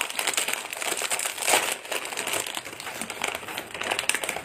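Paper food wrapper crinkling and rustling in irregular bursts as it is unwrapped by hand.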